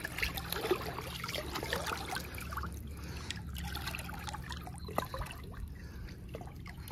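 Shallow muddy water trickling and sloshing as bare hands and feet work through it, with many small splashes and ticks and one sharper click about five seconds in.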